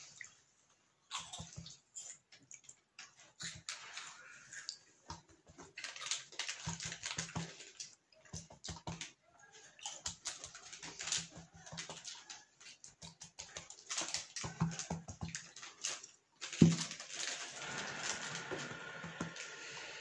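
Fingers flicking and patting liquid from a cup onto embroidered fabric: light irregular taps and rustles of hand on cloth. A sharp knock about two-thirds of the way through, followed by steadier handling noise.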